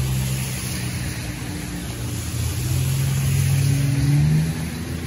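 A car drives past on wet pavement: a low engine hum and tyre swish that swell to the loudest point about four seconds in, then fade, over steady rain hiss.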